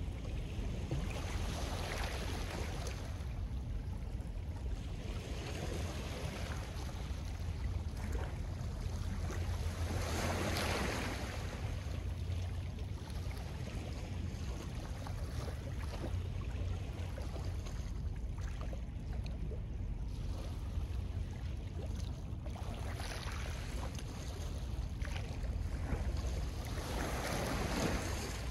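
Small lake waves washing and breaking on a stony shore, swelling and fading a few times, the biggest about ten seconds in and near the end, over a steady low rumble of wind on the microphone.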